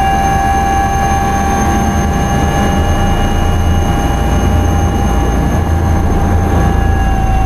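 Cabin noise of an Airbus H160 helicopter in flight: a steady whine from its twin Safran Arrano turboshaft engines and drivetrain over a low, constant rotor rumble, heard from inside the cabin.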